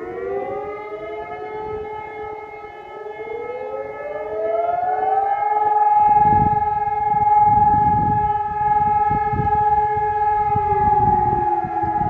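Civil defence sirens sounding a test alarm across the town, an E57 motor siren and a Hectronic-type Helin Sonus HES 1200 electronic siren among them. One siren reaches a steady tone within the first second. A second winds up over a couple of seconds to a higher steady tone about five seconds in, and both hold. Near the end the lower tone begins to fall away.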